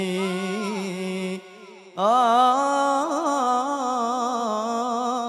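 Male voices of a Banjari sholawat group chanting Arabic devotional verse in long, drawn-out held notes. One sustained ornamented note breaks off about a second and a half in, and a new held note with wavering pitch begins about half a second later.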